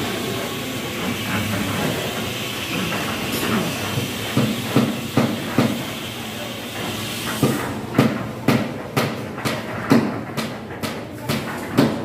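Steady rushing mechanical noise, giving way about seven seconds in to a regular run of sharp knocks, about two a second.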